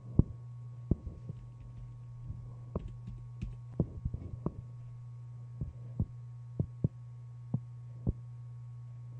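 Scattered sharp clicks of computer keys and a mouse, about a dozen at irregular intervals, over a steady low hum.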